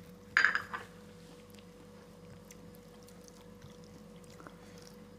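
Fingers mixing rice and curry on a plate: faint soft squishing and small ticks. A brief, loud noisy sound comes about half a second in, and a faint steady hum runs underneath.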